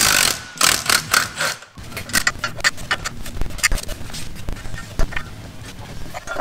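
Metal tools clinking and scraping on the clutch pressure plate and its bolts while it is being unbolted from the flywheel: a few short noisy bursts in the first second, then a run of irregular metallic clicks and clinks.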